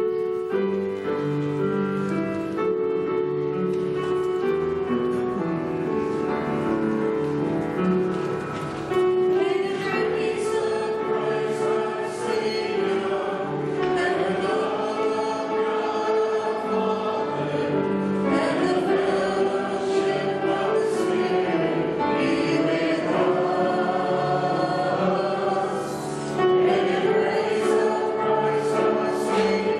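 Choir singing a gospel hymn with accompaniment, starting abruptly right after a spoken "Amen".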